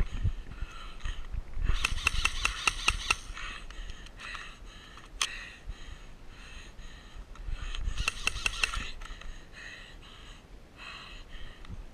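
Airsoft rifle firing two rapid bursts, one about two seconds in and a shorter one about eight seconds in, each a fast run of sharp clicks.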